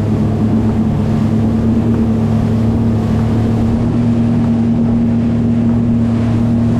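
Motorboat engine running steadily at speed with a low, even hum, over wind on the microphone and rushing water.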